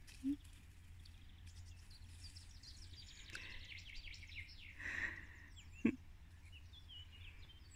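Birds chirping and calling in quiet outdoor ambience over a low steady rumble, with a single short knock about six seconds in.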